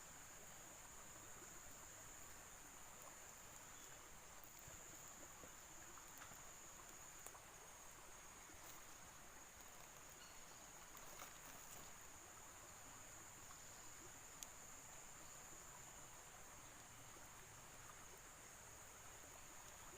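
Near silence with faint, steady, high-pitched insect chirring, like crickets, and a few small clicks.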